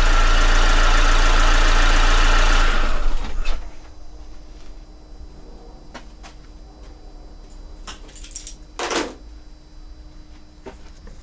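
Vauxhall Vectra's 1.9 CDTi diesel engine idling steadily, then switched off about three seconds in. After it stops come a few light clicks and a short scuffing noise near the nine-second mark.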